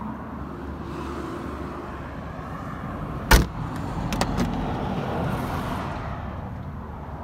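Steel door of a Morris Mini Mk I shut with one loud slam about three seconds in, followed by a few lighter clicks, over a steady low rumble.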